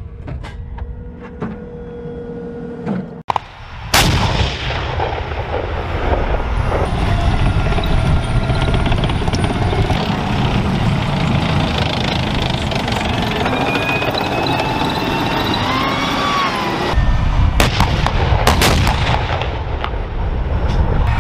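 M1 Abrams tank 120 mm main gun firing: one sharp blast about four seconds in and several more reports close together near the end. Loud continuous rumbling runs between them.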